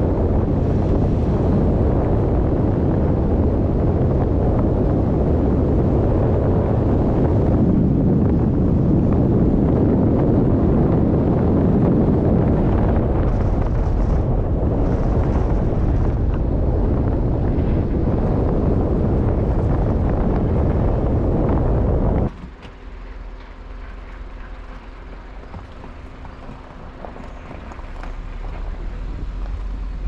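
Heavy wind buffeting the microphone, a loud, even rumble that cuts off suddenly about two-thirds of the way through. A quieter steady motor hum is left, and it grows louder near the end.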